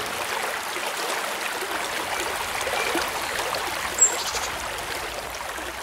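Stream water flowing and trickling steadily, with a brief high chirp about four seconds in.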